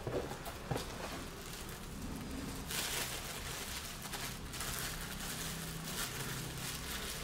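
Packaging rustling and crinkling inside a cardboard box as parts are lifted out, with a few light clicks at the start and a steadier rustle from about three seconds in.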